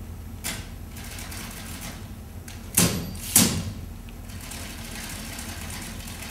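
Two loud, sharp knocks about half a second apart near the middle, after a faint one about half a second in, over a low steady hum of room noise.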